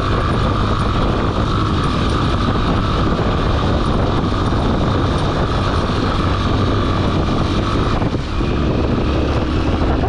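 Motorcycle engine running steadily under way on a rough gravel track, a constant hum with a steady whine over it. The level dips briefly about eight seconds in, then the engine carries on.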